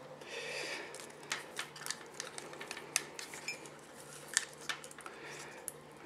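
Faint handling noise: scattered small clicks and rubbing from hands moving a circuit board, keypad and cables, over a faint steady hum.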